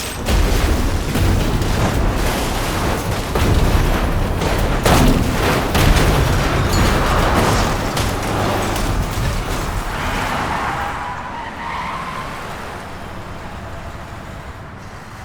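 Designed film sound effects of a vehicle crash and explosion: a heavy low rumble with several sharp impacts, loudest about six seconds in, then slowly dying away with some faint metallic ringing.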